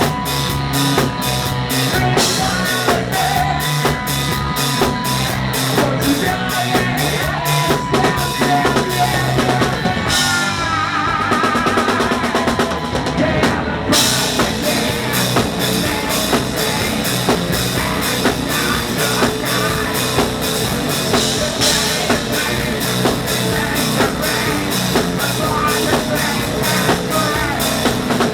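Live rock band playing: a fast, driving drum kit with electric guitar and singing. About ten seconds in, the drums drop out for a few seconds under a wavering held note, then the full band crashes back in.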